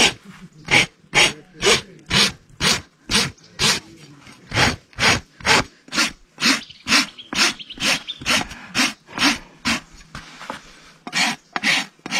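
Hoof rasp scraping across a horse's hoof in steady, even strokes, about two a second, with a brief pause near the end before the strokes resume.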